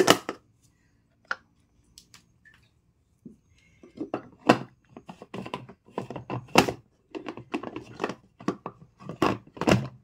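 Hard plastic clicks and knocks of a small electric food chopper being put together: the lid set on the bowl and the motor head fitted on top. A few scattered clicks first, then a quicker run of knocks in the second half; the motor is not yet running.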